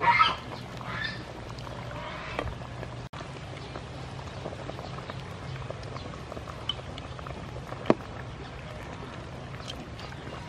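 Wooden ladle scooping pork leg stew from a metal pot and pouring it into a clay pot, the broth splashing and pouring. A brief loud noise comes right at the start, and there is a single sharp click later on.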